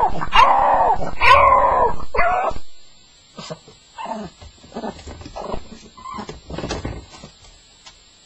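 Staffordshire bull terrier crying on its first night: a few loud, drawn-out wailing whines, then after about three seconds softer, short whimpers and yelps that die away near the end.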